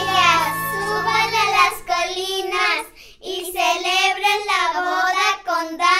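Young girls singing together, their voices held and gliding in pitch, with a short break about halfway. Backing music stops about two seconds in.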